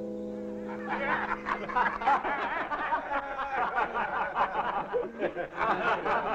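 Several men laughing heartily together, starting about a second in, as a held music chord fades out.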